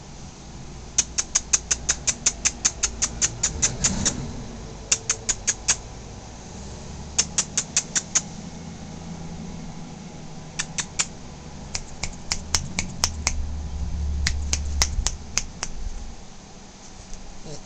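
Rapid runs of sharp clicks, about eight a second, coming in several bursts of one to three seconds, over a low rumble.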